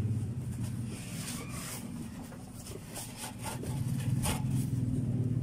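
A knife slicing through a cardboard box: a rasping cut about a second in, then several short, sharp rips between about three and four and a half seconds in. A steady low hum runs underneath.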